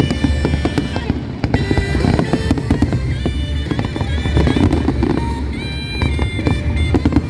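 Fireworks bursting in many rapid, overlapping bangs and crackles, with music playing under them.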